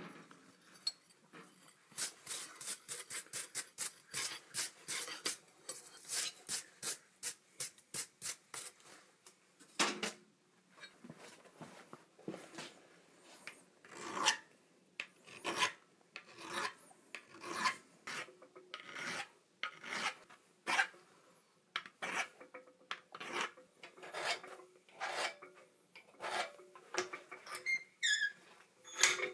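Hand filing on forged steel: a run of quick rasping strokes for several seconds, then slower, separate strokes about one or two a second.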